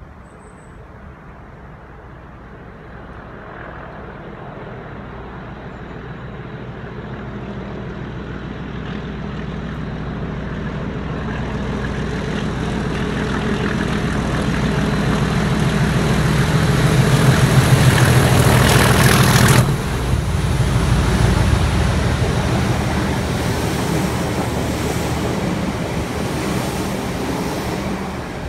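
Class 37 diesel locomotive's English Electric V12 engine growling under load as it hauls a rake of unpowered Merseyrail electric units, getting steadily louder as it approaches. About two-thirds of the way through the engine sound drops suddenly as the locomotive passes beneath. The trailing units' wheels then rumble by on the rails and fade.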